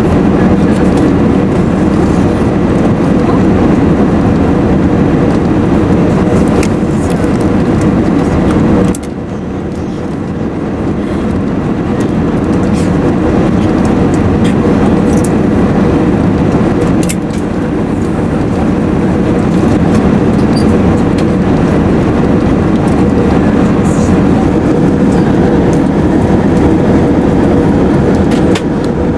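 Steady cabin noise of an Airbus A380 at cruise: the low roar of air rushing past the fuselage and the engines, with a faint steady hum. The level drops suddenly about nine seconds in and builds back over several seconds.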